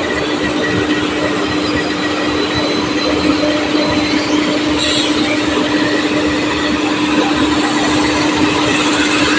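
KAI CC 206 diesel-electric locomotive passing slowly at close range: its diesel engine runs with a steady hum over the rolling of steel wheels on the rails, with a brief click about halfway through.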